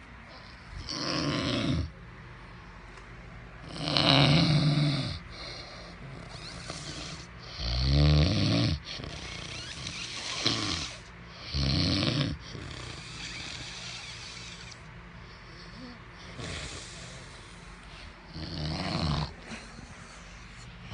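A man snoring heavily, with a loud, rasping snore every three to four seconds and fainter breaths in between; one snore in the middle has a deep, vibrating rattle.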